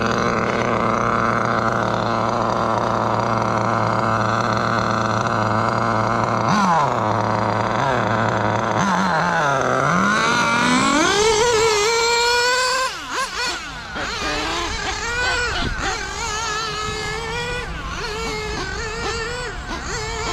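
Serpent 990 1/8-scale on-road car's OS Speed nitro glow engine idling steadily at first. About six seconds in it is revved, its pitch dropping and then climbing steeply. From about thirteen seconds the car drives off and the engine is quieter, its pitch rising and falling as it runs on the track.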